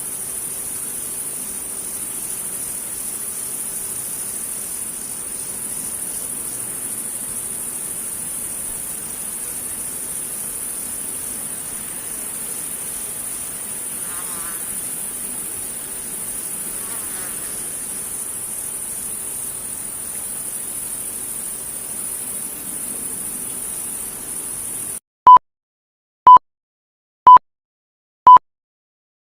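A steady, high-pitched insect chorus drones unbroken, then cuts off suddenly. Four short beeps follow, all at the same pitch and about a second apart, and a longer beep starts at the very end, like a time-signal countdown.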